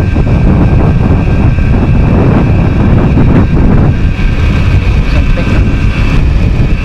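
Wind buffeting the microphone on a moving Yamaha DT100 trail bike, over its single-cylinder two-stroke engine running steadily underneath.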